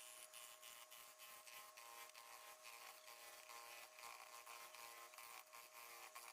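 A small electric power tool running with a steady high buzz, with a rapid scratchy crackle of it working wood.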